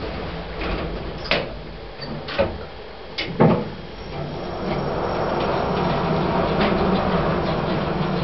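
Service lift, a KONE EcoDisc: a few knocks and a clunk as the doors shut, then the car sets off about four seconds in with a steady running hum that grows louder and holds.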